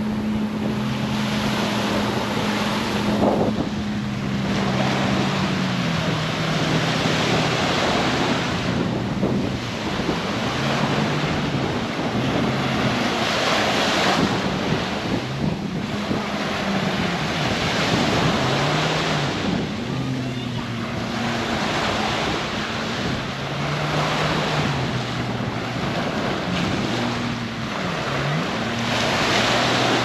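Surf washing onto the beach in repeated swells, with wind on the microphone. Under it a motorboat engine drones, its pitch rising and falling.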